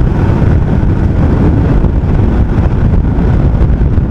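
Loud wind buffeting on the microphone of a camera riding on a moving motorcycle on the highway: a steady, rough low rumble with the road and engine noise buried in it.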